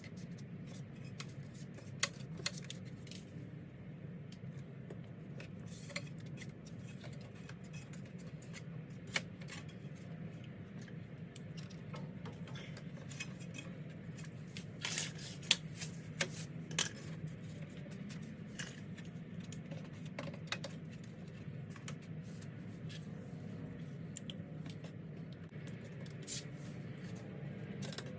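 Scattered clicks and light metallic clinks of tools, clamps and parts being handled while an aluminum clutch housing is fitted, with a cluster of sharper clicks about halfway through, over a steady low hum.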